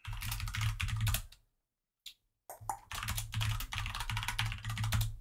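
Computer keyboard typing in rapid runs of keystrokes, with a pause of about a second in the middle.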